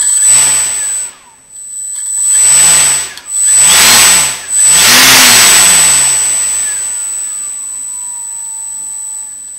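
Small 4000KV brushless motor spinning a propeller: it surges up about four times in quick succession under a steady high whine, then winds down with falling pitch over the last few seconds. Its start-up from low throttle is rough and does not catch smoothly, which the builder suspects is a poor match between the motor and the ESC.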